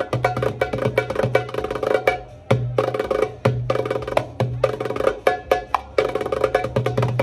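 Darbuka (goblet drum) played in a quick, dense rhythm of sharp strokes. It plays over backing music with a sustained low bass line that changes about once a second.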